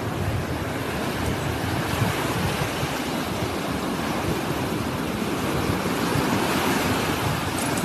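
Small sea waves washing onto a sandy beach, a steady rushing noise with a low rumble underneath, cutting off suddenly at the very end.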